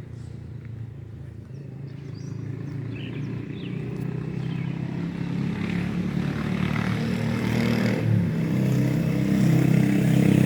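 A motor vehicle's engine running and drawing closer, growing steadily louder throughout.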